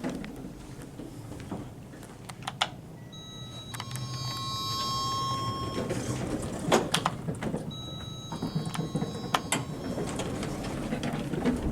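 Modernised Otis lift: an electronic arrival chime of several held tones sounds about four seconds in and again near nine seconds, while the lift doors slide, with sharp knocks and clicks from the door gear.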